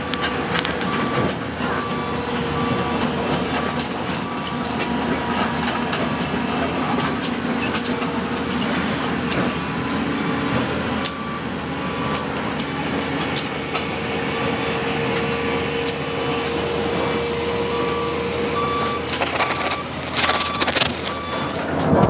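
Excavator's diesel engine running steadily, with a warning alarm beeping over and over at a regular pace. Near the end there is a louder stretch of rumbling noise.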